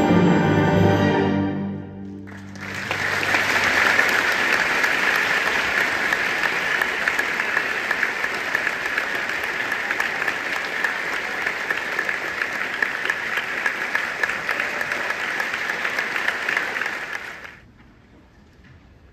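An instrumental ensemble's closing chord dies away. About two seconds later an audience breaks into steady applause that lasts some fifteen seconds and fades out near the end.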